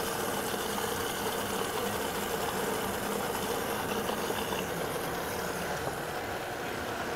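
High-powered countertop blender motor running steadily at a moderate speed, churning cashews, water and olive oil into a thick cashew butter.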